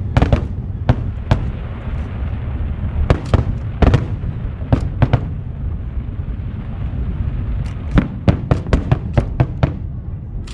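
Aerial fireworks going off: sharp bangs of bursting shells at irregular intervals over a steady low rumble, with a quick run of bangs about eight seconds in.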